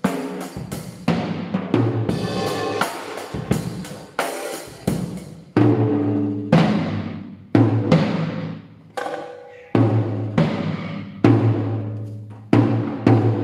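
Drum kit played with sticks on toms freshly fitted with new Remo heads. The first few seconds are quick hits with cymbal crashes. After that come single tom strokes about once a second, each ringing with a low pitched boom that dies away.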